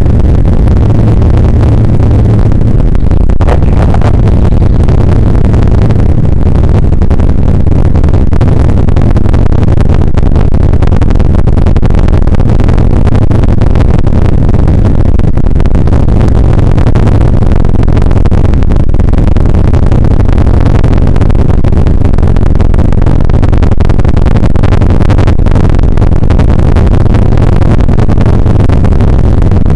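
Bell UH-1 Huey helicopter in flight, heard from inside the cockpit: loud, steady rotor and gas-turbine engine noise.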